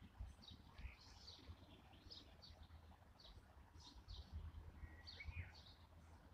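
Small songbirds chirping faintly, short high chirps every fraction of a second with a brief whistled note about five seconds in, over a faint low rumble.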